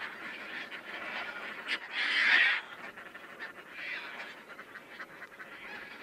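Caspian terns calling, several harsh, raspy calls overlapping. The loudest comes about two seconds in and lasts about half a second.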